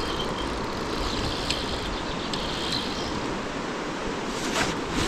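Steady rushing of a flowing river, with a few faint ticks over it.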